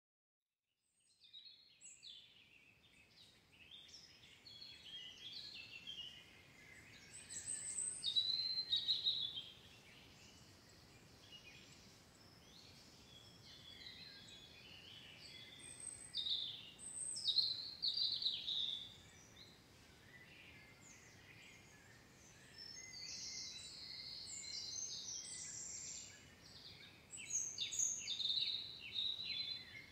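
Small songbirds chirping and twittering in quick, high phrases, with several louder flurries, over a faint steady background noise; it starts about a second in.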